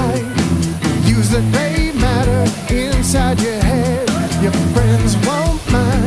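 Background rock song: a singing voice over drums and guitar, with a steady beat.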